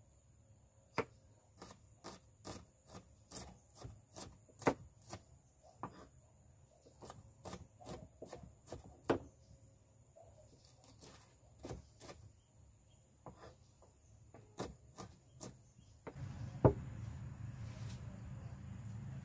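Kitchen knife chopping onion and garlic on a wooden cutting board: irregular sharp knocks of the blade on the wood, about one or two a second. Near the end a steady low rumble comes in and a single louder knock sounds.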